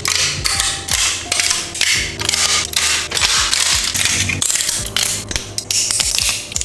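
Flush cutters snipping and snapping PLA support material off a 3D-printed part: a rapid, uneven run of crisp plastic cracks and clicks.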